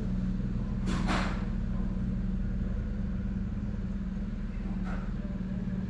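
Canal boat's engine running with a steady low hum as the boat approaches. Two short hissing sounds come about a second in.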